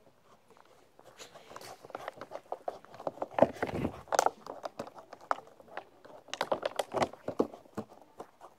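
A dog snuffling and nosing about in the grass right at the microphone, with close rustling, scuffs and sharp clicks. It starts about a second in and is loudest a few seconds in and again about two-thirds of the way through.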